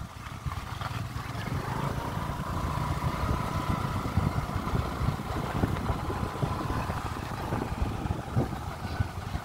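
Motor scooter engine running as it rides along a rough dirt path, a steady low rumble with many small knocks and rattles. A faint steady whine comes in about a second and a half in and fades out around seven seconds.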